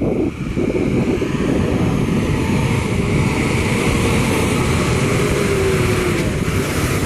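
JCB 3DX backhoe loader's diesel engine running steadily under work, with a faint tone that slides slowly down partway through.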